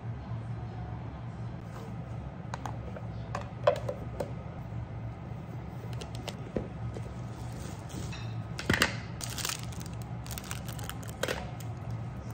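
Handling sounds of a wooden bento box being lidded and wrapped in cloth: scattered small clicks and knocks, a sharper knock about four seconds in, and brief cloth rustles later on, over a steady low hum.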